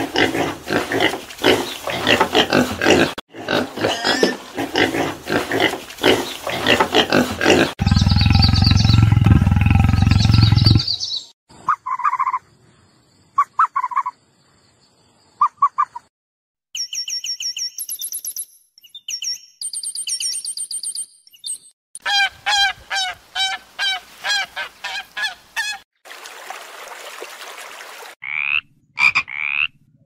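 A run of different animal calls cut one after another. It opens with a wild pig's calls, goes through several other calls (a loud low call, short mid-pitched calls, high-pitched calls, a rhythmic series) and ends with a few short, rising tree-frog croaks.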